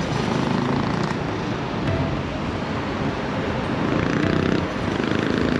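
Steady vehicle and road noise from a motorcycle riding in traffic, with the engine running under a continuous rush of wind and tyre noise.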